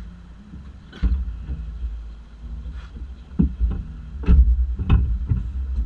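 Wind buffeting a low-mounted camera's microphone: a low rumble broken by sudden thumps, once about a second in and several times in the second half.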